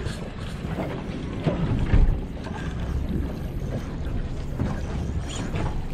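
Spinning fishing reel working under load, its drag and gears turning, as a hooked kingfish pulls against the bent rod. A low thump sounds about two seconds in.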